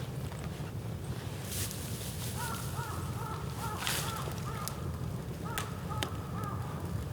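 A bird calls a quick run of short arching notes, about three a second, in two bursts. Under it runs the low rumble of a burning bamboo fire, with a few sharp crackles and pops, the loudest about four seconds in.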